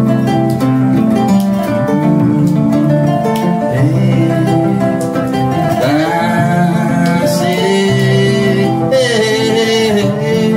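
Kora and acoustic guitar playing together, their plucked strings interweaving in a steady flow of notes.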